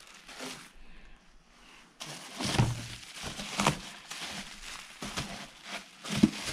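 Bubble wrap and foam packaging being handled and shifted in a cardboard box: irregular crinkling and rustling with soft knocks, quieter at first and busier from about two seconds in.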